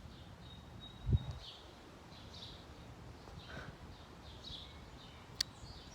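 A bird calling over and over, short chirps every second or two, over quiet outdoor background noise. A low thump about a second in and a sharp click near the end.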